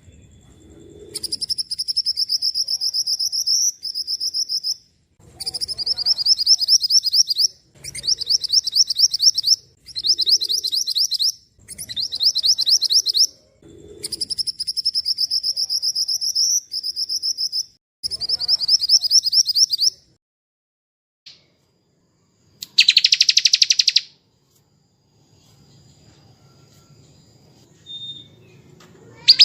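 Recorded small songbird giving its rapid, high 'tembakan' trill, a training call for white-rumped shamas. It comes in about nine fast-pulsed phrases of one to two and a half seconds each, then a single shorter, buzzier burst a few seconds after the last phrase.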